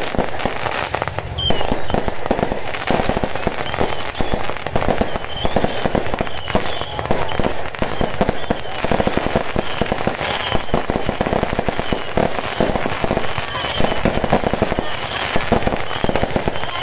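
Fireworks and firecrackers going off in a rapid, unbroken crackle of many pops.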